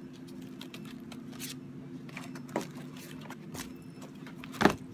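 Hands handling a plastic stencil on a sketchbook page and lifting it off: light rustling and scattered clicks, with one louder knock near the end, over a steady low hum.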